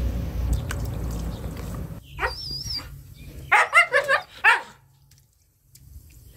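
A dog barking, three or four short yips in quick succession a little past halfway. A low steady rumble underneath stops about two seconds in.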